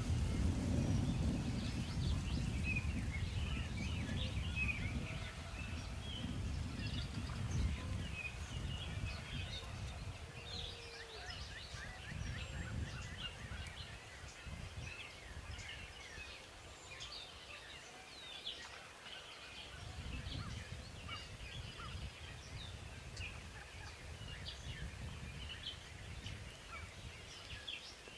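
Many songbirds chirping and singing in short, rapid notes, over a low rumble that is strongest for the first eight seconds or so and then fades.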